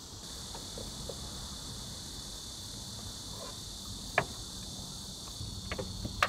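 Steady high insect buzz in the grass, with a few sharp clicks and knocks from handling the camper van's sliding side door, the two loudest about four and six seconds in.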